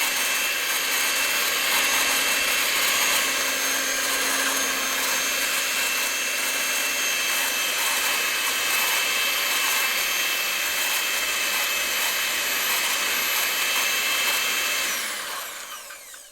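Electric handheld mixer running at a steady speed, a motor whine over a whirring hum. Near the end it is switched off and winds down, its pitch falling as it fades away.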